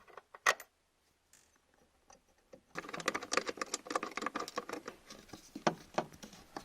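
Car interior carpet and plastic trim being handled and worked into place: a single sharp click about half a second in, a pause, then dense rapid scratching and small clicks from about three seconds in.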